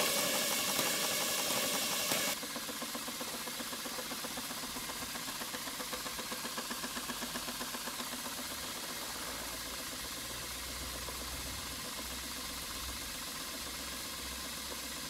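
Stuart 5A single-cylinder steam engine running steadily on steam, its exhaust beating in a quick, even rhythm over a hiss of steam. About two seconds in, the loud hiss drops away sharply and the engine's rhythmic beat carries on more quietly.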